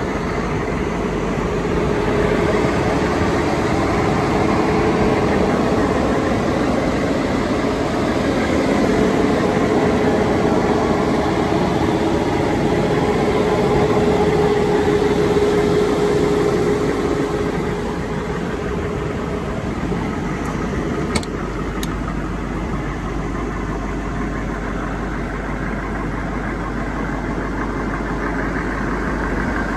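M1167 Humvee's turbodiesel V8 idling steadily with a steady whine over it, louder through the first part and dropping back about two-thirds of the way through, with a couple of light clicks soon after.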